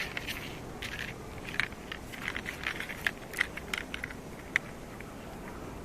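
Cats crunching dry, crunchy cat snacks, with irregular crisp bites and cracks that thin out near the end.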